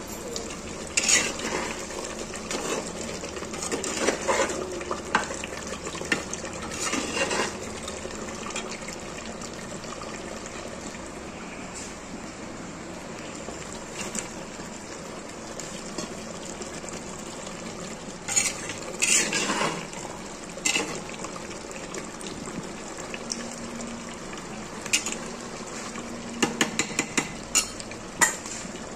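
Mutton curry sizzling steadily in a clay pot, with a metal spatula scraping and knocking against the pot as it is stirred: clusters of clinks near the start, in the middle and toward the end.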